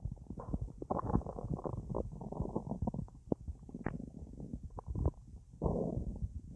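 Human stomach gurgling and bubbling: a rapid, irregular run of small pops and gurgles as gas and fluid move through a full belly after a large meal and a drink.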